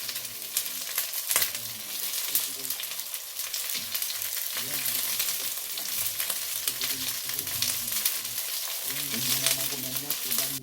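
Korean pancake batter (jeon) sizzling and crackling as it fries in oil in a pan. The frying cuts off abruptly at the end.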